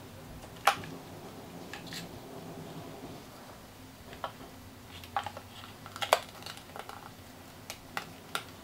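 Scattered small clicks and taps of a 9-volt battery being handled and fitted into a digital multimeter's plastic battery compartment, the sharpest about two-thirds of a second in and again about six seconds in.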